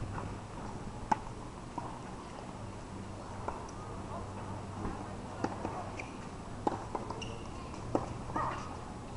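Tennis balls struck by rackets and bouncing on a hard court: sharp pops at irregular intervals, the loudest about a second in, over a steady low hum.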